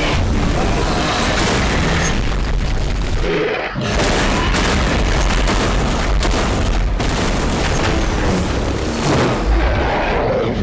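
Action-movie battle sound mix: continuous deep booms and explosions layered under dramatic music, with a short dip about three and a half seconds in.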